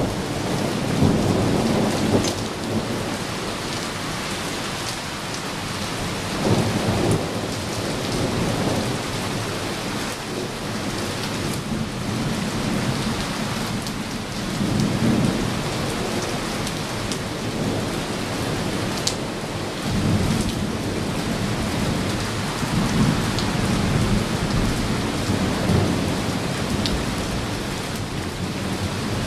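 Thunderstorm: steady rain with thunder rumbling again and again, loudest at the start and swelling up several more times.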